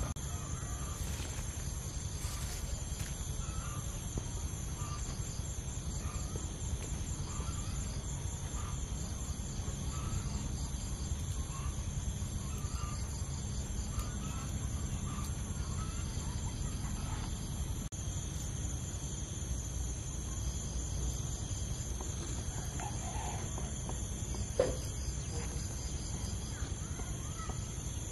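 Steady high-pitched chorus of insects over a low rumble, with faint short calls every second or two and one sharp knock near the end.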